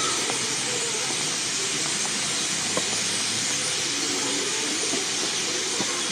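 Steady, even rushing hiss of outdoor ambience, with faint distant voices and a few small ticks underneath.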